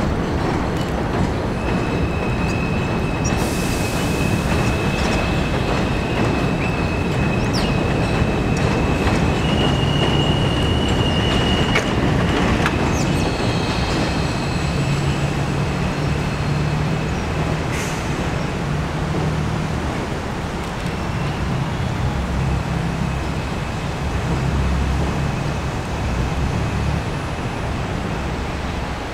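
New York City Subway trains moving over curved yard tracks: a steady low rumble with a high-pitched steel wheel squeal from the curves. The squeal holds one pitch for several seconds, steps slightly higher about ten seconds in, fades, and returns faintly near the end. A few sharp clicks come through.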